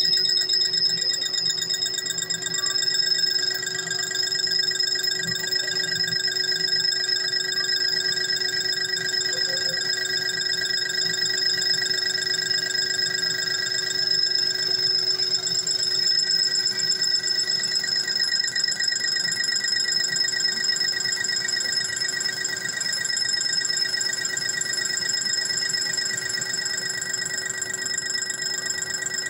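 Metal lathe turning and facing a thin metal disc held between the chuck and a tailstock centre. It gives a steady, high-pitched ringing whine made of several held tones that flutter slightly, with no break.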